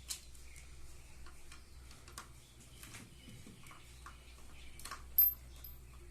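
Scattered light clicks and taps of tools and small parts being handled while carbon brushes are taken out of a washing machine's brushed motor. A low steady hum sits underneath, and there is one sharper, louder click about five seconds in.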